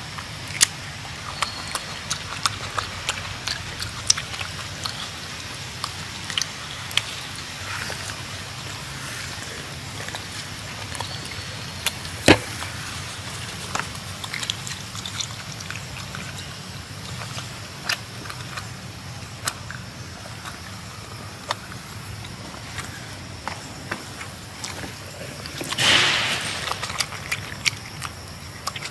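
Long-tailed macaque eating dragon fruit and rambutans: scattered sharp clicks and smacks of chewing and peel handling over a steady outdoor hiss, with a brief rustle near the end.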